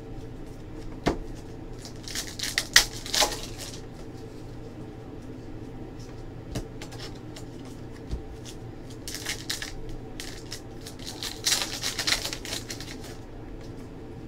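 Basketball trading card packs being handled: foil wrappers crinkling as they are torn open and cards being flicked and shuffled through by hand. The crinkling and rustling comes in three short bunches, with a few sharp clicks between them.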